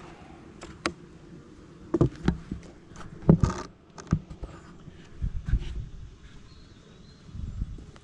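Wooden beehive parts knocking and clattering as the lid and cover are put back on the hive: several sharp knocks, the loudest with a short scrape about three seconds in, and dull low thuds near the end. Bees buzz faintly underneath.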